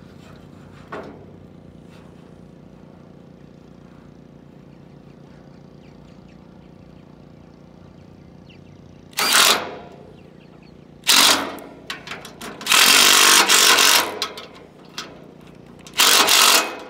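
Cordless impact driver with a 5/16 Allen-head socket running in four short bursts, the third the longest at about a second and a half, as it turns a MaxLoc dock support's adjusting bolt to lower the aluminum dock section to level.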